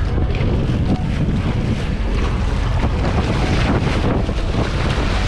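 Wind buffeting the microphone over the steady rush of sea water around a moving boat's stern.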